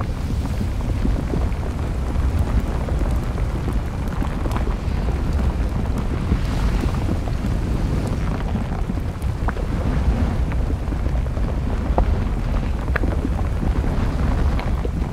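Steady low rumble of an erupting volcano's lava flow, with scattered sharp crackles.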